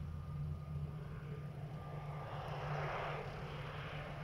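Jet airliner engine noise over a steady low rumble, swelling to a peak about three seconds in and then easing as the aircraft passes.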